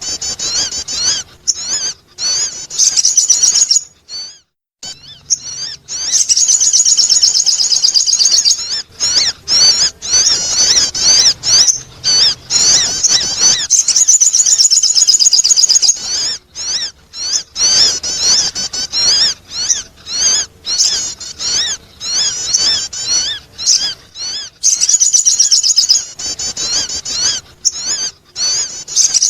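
Sogon bird song played as a lure call: rapid, high warbling chirps in long bursts separated by short pauses.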